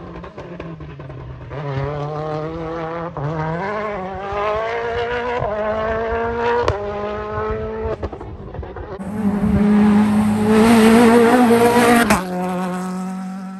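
Rally car engines accelerating hard through the gears, the pitch climbing and dropping back at each shift. About nine seconds in a car passes much closer and louder, the sound cuts off abruptly just after twelve seconds, and a steadier engine note follows.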